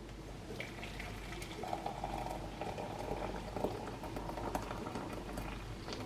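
Steady bubbling of water, like a pot or kettle at the boil, with scattered small clicks through it.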